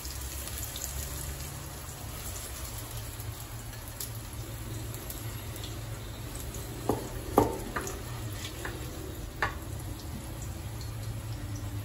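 Fried calabresa sausage slices being scooped out of a pressure cooker with a plastic spatula onto a plate: a faint sizzle of hot fat over a steady low hum, with a few light clinks and scrapes of the spatula, the sharpest about seven and a half seconds in.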